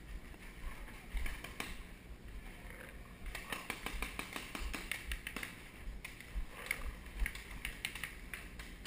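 Paintball markers firing: irregular sharp pops, a few at first, then a dense run of shots about three and a half seconds in, and more scattered shots near the end.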